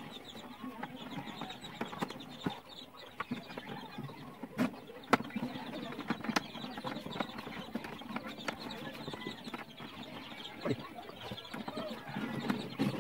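Chickens clucking in the background, with scattered sharp taps and clicks from hands working string around a plastic water jug.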